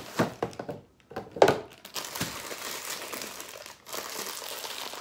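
Brownie mix packet crinkling and rustling as it is handled and pulled at while someone struggles to tear it open, with a few sharp crackles in the first second and a half and dense crinkling from about two seconds in.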